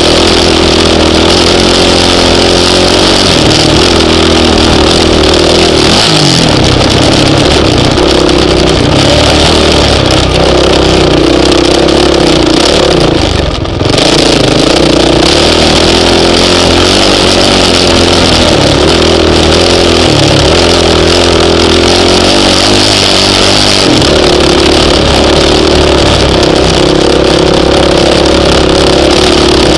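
Honda CRF450X single-cylinder four-stroke dirt bike engine under way, its pitch rising and falling as the throttle is worked. The engine note drops off briefly about halfway through, then picks up again.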